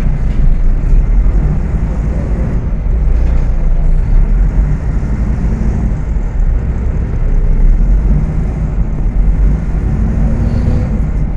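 Volksbus 18.280 OTS city bus engine running under way, heard on board as a steady, loud low rumble. A faint tone rises briefly near the end.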